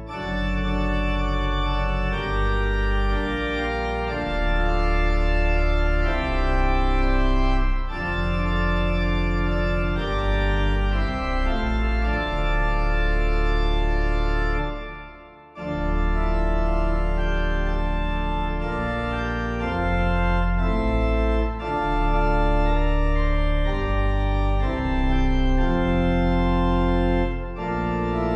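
Organ music, a hymn tune played in sustained chords that change every second or two. It fades out briefly about halfway through, then starts again.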